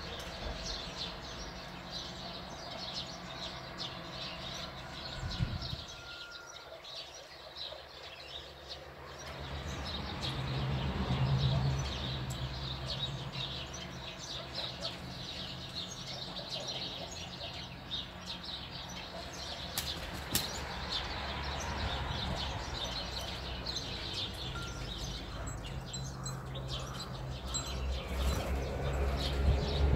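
Small birds chirping and twittering continuously, many short high chirps, over a low background rumble that grows louder near the end.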